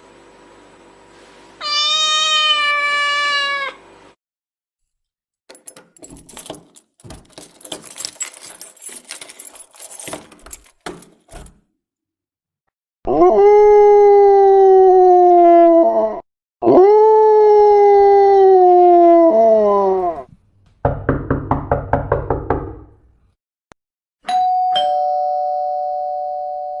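A run of sound effects played one after another. A cat meows. Then comes a few seconds of crackling clicks and two long calls that fall in pitch, like howls. Near the end a fast rattling buzz plays, followed by a two-tone doorbell chime that slowly fades.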